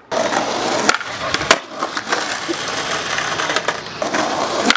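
Skateboard wheels rolling hard over concrete with a steady rushing grind, broken by several sharp clacks of the board against the ground or ledge.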